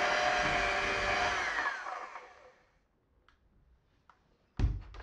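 Electric hand mixer running steadily as its beaters work crumbly cookie dough in a glass bowl, then switched off about two seconds in, its motor whine sliding down as it spins to a stop. A few faint clicks follow, then one sharp knock near the end.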